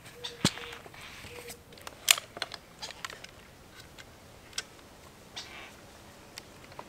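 Handling clicks and knocks from a camera tripod being set up and a camera with a telephoto lens being mounted on its head, a series of sharp separate clicks with the loudest about half a second and two seconds in.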